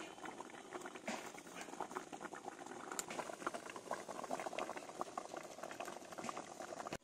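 Spiced potato curry gravy boiling in an open pan, with a dense, steady bubbling of many small pops.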